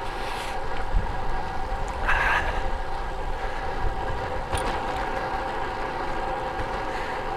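Riding noise from a road bike under way: wind rumbling on the microphone over a steady road noise, with a brief rush about two seconds in.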